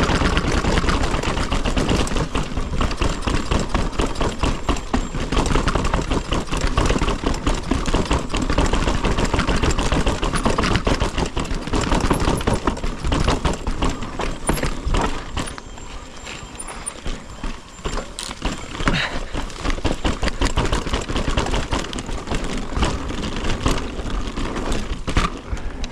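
Mountain bike clattering fast down a stone-flagged, rocky path: a dense, rapid rattle of tyres knocking over the stones and the bike shaking, over a low rumble.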